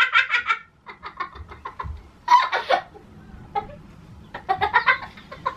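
A boy and a woman in a fit of giggling laughter: rapid ha-ha pulses at first, dropping to softer giggles, then swelling into louder bursts twice.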